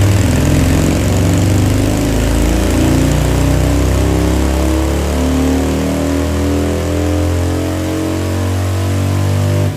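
Harley-Davidson trike's 103 cubic inch V-twin with a modified exhaust making a full dyno pull, its rear wheel driving the chassis dyno roller. The engine note climbs slowly and steadily through the revs, then drops off suddenly near the end.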